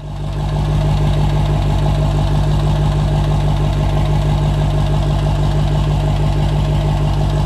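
Ford pickup's diesel engine idling steadily, heard close to the exhaust tip. It starts abruptly and holds an even, rhythmic idle.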